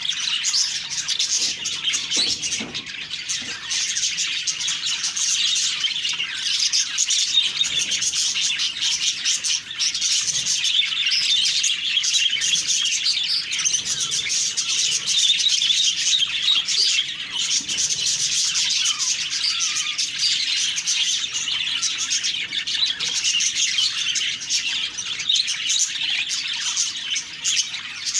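A flock of budgerigars chattering and warbling, a dense, continuous mix of many short high chirps and trills.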